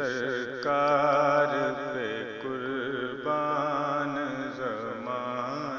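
A voice singing an Urdu naat, a devotional praise poem, in long held notes that waver up and down.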